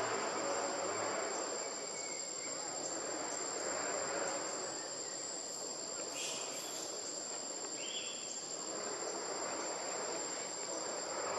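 Forest insects, cicadas or crickets, buzzing steadily in a high-pitched chorus, with one short rising chirp about eight seconds in.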